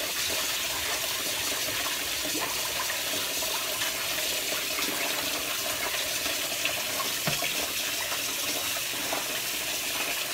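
Kitchen faucet running steadily into a plastic bowl of parboiled rice while a hand swishes the rice around in the water, rinsing the starch off it.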